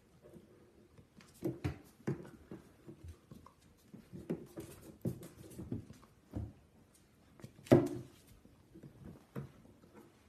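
Golden retriever puppy chewing and tugging at a plastic toy: irregular clacks and knocks of plastic against its teeth, mixed with small puppy grunts, and one loud knock about three-quarters of the way through.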